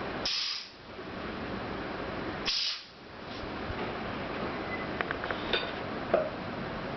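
Pneumatic perfume bottle crimping machine's air cylinder venting: two short, sharp hisses about two seconds apart, then a few light clicks near the end.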